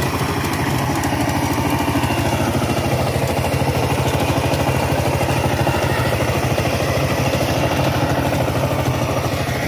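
Single-cylinder diesel engine of a two-wheel power tiller running steadily in a rapid, even chug while the tiller drives through wet paddy mud.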